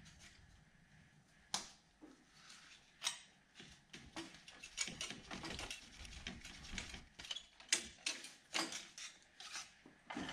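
Socket ratchet clicking in short runs, with sharp metal knocks and taps of tools, as the water pump bolts are worked.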